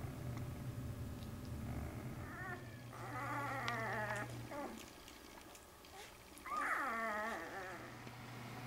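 Newborn puppies whimpering: wavering, high-pitched cries in three short bouts, the last and loudest near the end, over a steady low hum.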